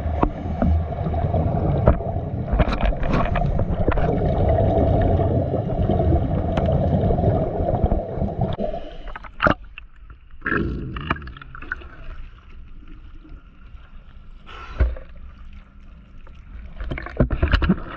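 Motorboat engine and propeller drone heard underwater, steady with a humming tone, stopping suddenly about nine seconds in. After that it is quieter, with scattered clicks and short bubbling bursts.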